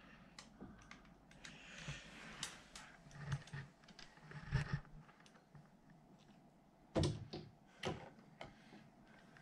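Faint, scattered small metal clicks and taps of a hex key working a set screw on a wheel of a quilting-machine frame, with two sharper knocks about seven and eight seconds in. The screw sits in a tight spot and turns only a fraction of a turn at a time.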